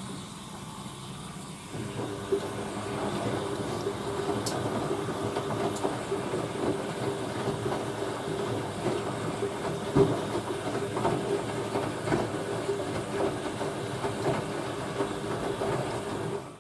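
Hoover A3060 Electronic 1100 washing machine running mid-cycle: a steady mechanical hum sets in about two seconds in, with scattered clicks and knocks, and cuts off suddenly at the end.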